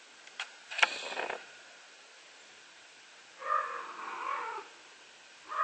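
Scottish fold cat meowing: one drawn-out, wavering meow of about a second starting about three and a half seconds in, and another starting right at the end. About a second in there is a short noisy burst with a couple of sharp clicks.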